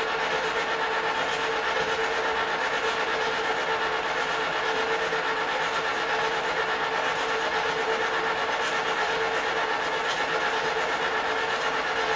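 Two small electric countertop popcorn machines running with empty kettles, preheating before the oil goes in: the motor-driven agitators turn inside the steel kettles with a steady mechanical hum, one machine much noisier than the other.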